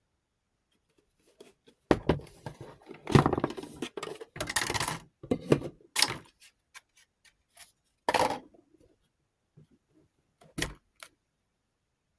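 Small hard parts of a rotary tool accessory set being handled: irregular clicks and clattering rattles, starting about two seconds in and dying away near the end.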